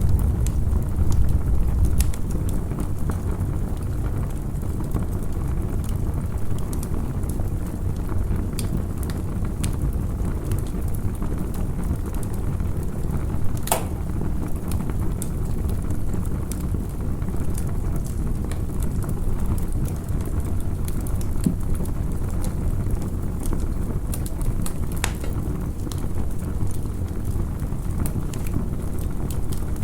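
Campfire crackling: scattered sharp pops and snaps, one louder about halfway through, over a steady low rumble.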